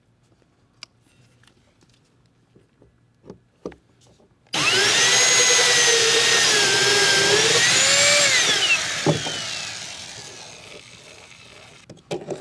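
Cordless drill driving a large hole saw through the plastic wall of a pond settlement tank. First a few small clicks as the bit is handled, then about four and a half seconds in the drill starts suddenly and cuts for about four seconds, its whine wavering and rising under load. It then winds down with a falling pitch and a single knock.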